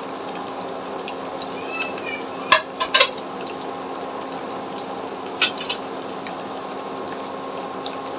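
Battered cubes of steamed potato-and-flour roll sizzling steadily in hot oil in a pan. A utensil knocks against the pan as the pieces are turned, three times around two and a half to three seconds in and again about five and a half seconds in.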